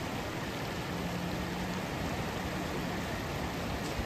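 Rushing water of a mountain stream, a steady noise, with a faint low hum that comes and goes about a second in.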